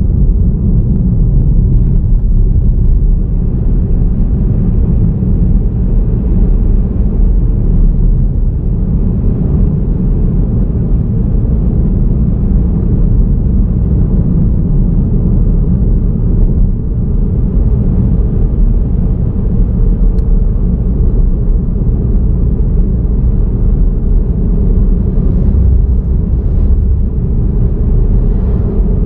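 A car driving along at a steady speed: a loud, steady low rumble of tyre and engine noise.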